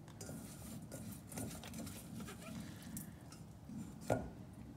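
Hands scooping and crumbling loose potting mix from a stainless steel bowl: soft, irregular rustling and scraping, with one sharper click near the end.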